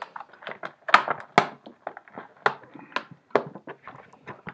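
Stiff plastic blister packaging being pulled apart by hand, crackling in an irregular run of sharp clicks, the loudest about a second and a second and a half in.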